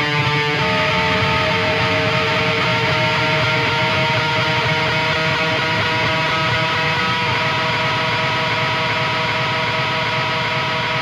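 Heavy music: distorted electric guitar chords held and left ringing as a steady drone, with the chord changing about half a second in.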